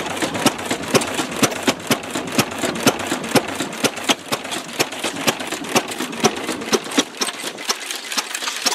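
Antique stationary gas engine, a Goold, Shapley & Muir 'Ideal', running with a steady, rapid clatter of sharp strokes, several a second; other old engines are running along with it.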